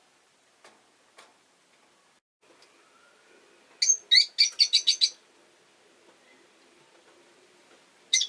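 Rosy-faced lovebird giving a quick run of about eight sharp, high-pitched chirps within a second, then a single chirp near the end. Two faint clicks come about a second in.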